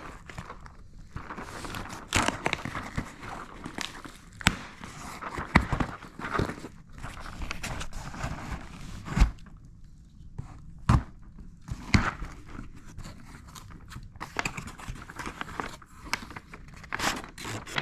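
A cardboard shipping box being opened and unpacked by hand: rustling and crinkling of cardboard and packing material, broken by several sharp knocks as things are handled and set down.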